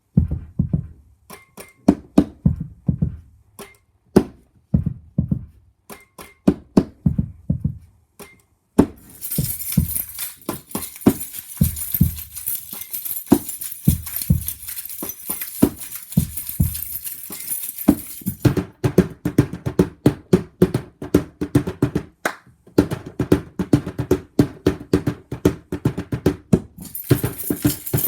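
Found-sound percussion groove played on household objects: thumps and taps on small boxes in a steady beat. A bright jingling layer joins about nine seconds in and drops out around eighteen seconds, where a denser, steady pattern takes over; the jingling returns near the end.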